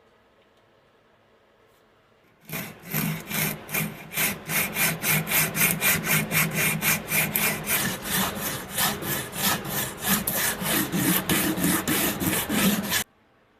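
Hand saw cutting wood in quick, even strokes, about four a second; it starts a couple of seconds in and stops abruptly near the end.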